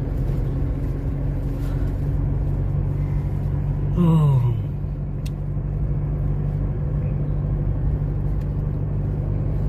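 Steady low rumble and hum of a car's engine and tyres, heard from inside the cabin while driving. About four seconds in, a brief falling tone sounds over it.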